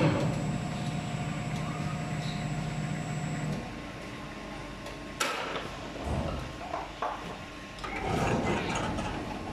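Injection molding machine cycling with its mold clamped shut: a steady machine hum stops about three and a half seconds in, then there is a sharp click about five seconds in and rougher mechanical noise near the end.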